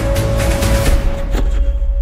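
Background music with a heavy bass line and a regular beat. About one and a half seconds in, the upper part of the track drops out, leaving only the bass.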